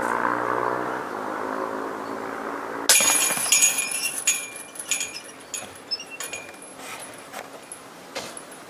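A steady hum for the first three seconds, then a disc golf disc strikes the hanging chains of a metal basket about three seconds in: a sudden metallic clash and jangle of the chains that rings on and fades over several seconds as the disc drops into the basket.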